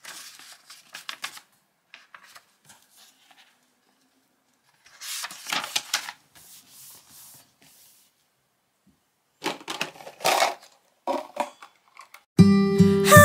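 Paper pages of a notebook planner being turned and smoothed by hand: soft page rustles and flicks, with louder swishes about five seconds in and again near ten seconds. Acoustic guitar music comes in just before the end.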